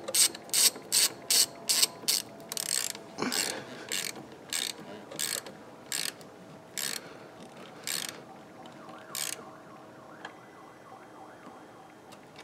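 Hand ratchet wrench with a socket tightening the clamp nut on a car battery's negative terminal: short bursts of pawl clicking on each back-stroke, quick at first, then spacing out and stopping about nine seconds in.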